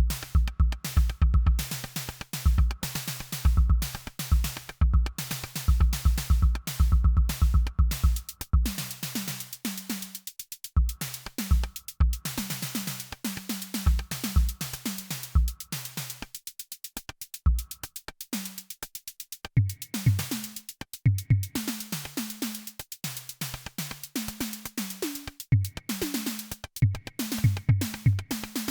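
Groove Synthesis 3rd Wave wavetable synthesizer playing a factory patch: a fast, drum-machine-like pattern of sharp percussive hits over short, changing bass notes. It starts suddenly from silence.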